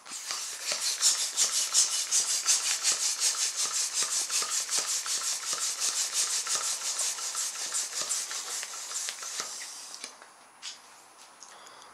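Hand-held plastic balloon pump worked in quick strokes, about four a second, each stroke a rushing hiss of air, inflating a balloon. The pumping stops about ten seconds in.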